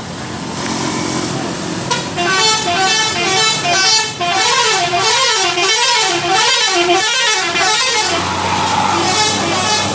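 Bus 'telolet' multi-tone musical air horn playing a warbling tune. It starts about two seconds in with stepped notes, then swings up and down in quick repeated swoops, and stops near eight seconds. A bus engine runs underneath.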